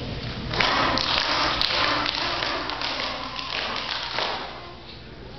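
Applause: many hands clapping, starting about half a second in and dying away near the end.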